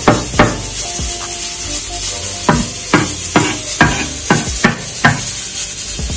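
Chef's knife chopping onion and garlic on a wooden cutting board: sharp knocks of the blade striking the board, two at the start, a pause of about two seconds, then a run of about two knocks a second.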